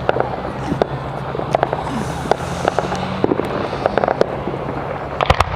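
Fireworks going off: scattered bangs and crackles at irregular intervals over a steady low hum, with a loud cluster of bangs about five seconds in.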